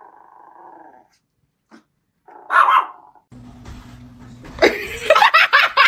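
A pet animal's loud call about two and a half seconds in, then a rapid run of loud calls near the end over a low steady hum.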